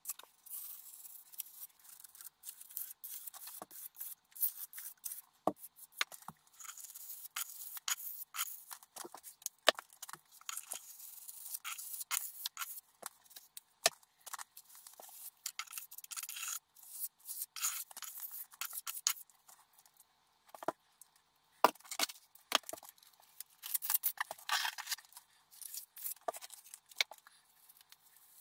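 Trowel and gloved hands working wet lime render onto a wall: a quick, irregular run of short scrapes and rubs.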